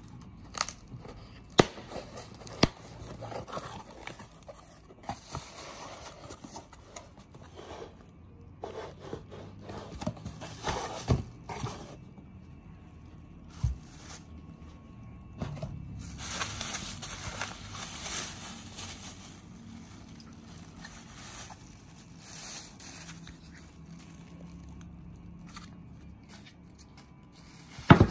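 Unboxing handling noise: cardboard box flaps rubbed and opened with a few sharp taps in the first seconds, then clear plastic wrap crinkling and rustling as a small speaker driver is pulled out of its bag.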